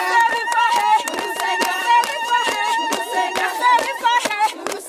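A group of women singing an old church chorus in high voices, to brisk hand clapping, with a high note held through most of it.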